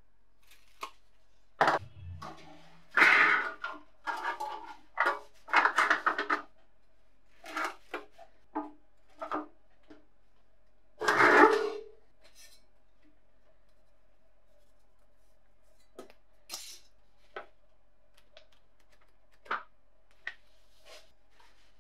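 Lever-arm paper guillotine being tested: paper rustling and sliding against the table, with clicks from handling the cutter. About eleven seconds in comes a longer scraping crunch as the blade is pulled down and shears through the paper, followed by a few small scattered clicks.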